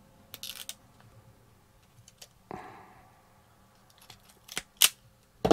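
Hand wire stripper clicking and snapping as its jaws grip thin trailer-light wires and pull the insulation off. The clicks are light at first and come as several sharp snaps near the end.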